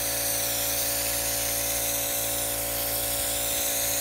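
Air-powered bed-liner spray gun hissing steadily as it sprays Raptor truck bed liner, over the even hum of the air compressor feeding it.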